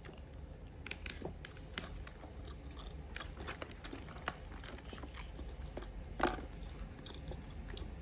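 A person chewing food close to the microphone, with many small crunching clicks and one louder one about six seconds in.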